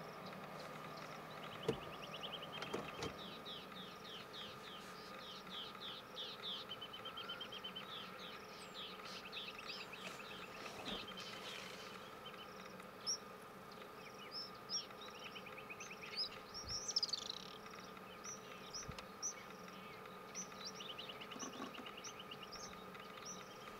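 Faint bush ambience: a steady insect drone, with birds calling in bouts of quick repeated chirping notes and a few short clicks.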